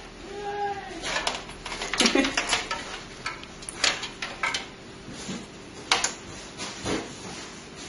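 Irregular clicks, knocks and rustles of computer parts, cables and packaging being handled during a PC build.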